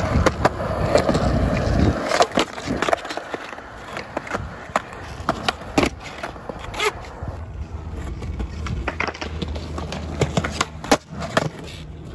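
Skateboard rolling on rough concrete: the low rumble of the wheels comes and goes, broken by a series of sharp clacks and knocks as the board is stepped on, popped and landed.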